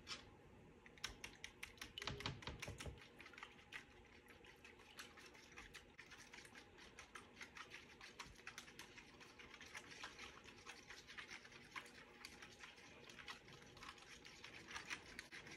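Faint, quick, irregular clicking of a utensil whisking an egg-and-milk batter against the side of a bowl, several ticks a second. There is a brief low bump about two seconds in.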